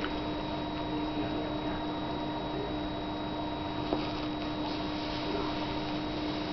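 Steady electrical hum with a hiss underneath, holding several fixed tones, and a single short click about four seconds in.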